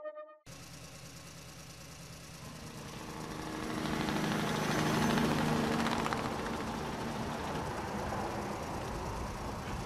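A motor runs with a steady low hum under a rushing noise. The noise swells louder around the middle, then settles to a steady level.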